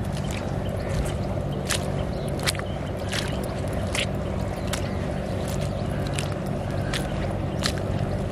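Footsteps in sandals squelching through soft wet mud: sharp wet clicks and squishes, irregular, about twice a second, over a steady low drone.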